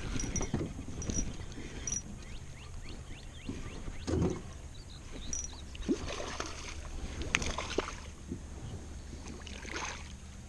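Scattered knocks and clicks of fishing tackle and gear being handled in a jon boat, with a louder knock about four seconds in, over a steady low rumble.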